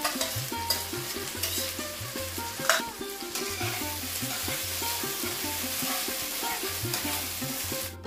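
Masala paste sizzling as it fries in oil in a nonstick kadai while a spatula stirs and scrapes it, with a few sharp utensil knocks in the first few seconds, the loudest about two and a half seconds in. The sizzling cuts off suddenly near the end, with background music underneath.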